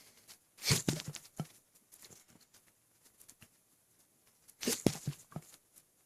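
Two hiccups about four seconds apart, each a sudden sharp catch with a short crackle after it, brought on by an overfull stomach from overeating and drinking a lot of water.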